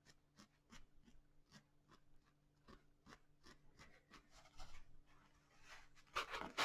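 A felting needle stabbing repeatedly through wool fibres into a foam pad, attaching one felted piece to another. It makes faint, short, scratchy pokes, about two or three a second. A louder rustle of handling comes near the end.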